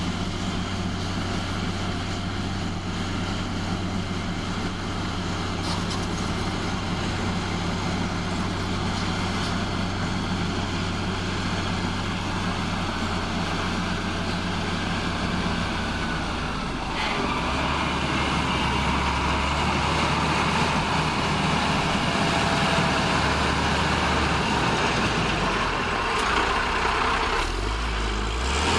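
Heavy diesel engine of a bulldozer running steadily under load; about two-thirds through the engine note drops and the clatter grows louder, and the pitch rises again near the end.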